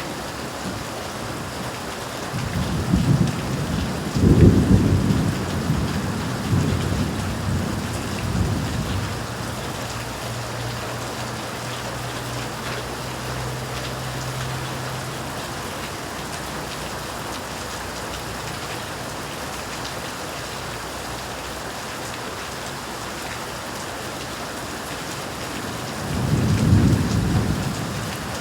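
Steady heavy rain falling, with thunder. A long rolling rumble of thunder starts a couple of seconds in and fades out, and a second, shorter rumble comes near the end.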